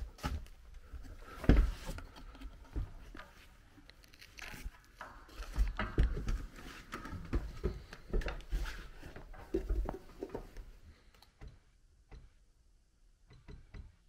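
Footsteps on a wooden pull-down attic ladder as someone climbs down it: a run of irregular thuds and knocks that dies away about three seconds before the end.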